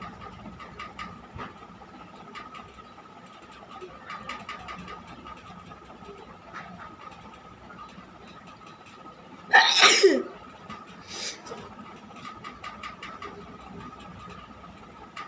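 One loud human sneeze about nine and a half seconds in, a sharp burst of breath ending in a falling voiced 'choo'. A smaller breathy sound follows about a second later, over a faint steady background tone.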